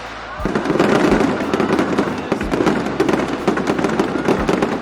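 Dense, rapid crackling pops that start about half a second in, with a few deeper thumps among them.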